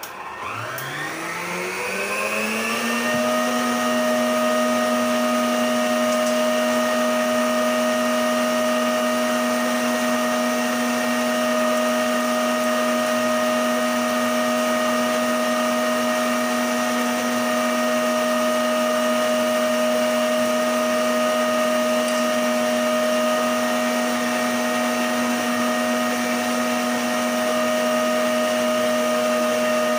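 Emsan stand mixer motor starting up, its hum rising in pitch over the first three seconds, then running steadily as the whisk beats egg yolks and sugar in the steel bowl.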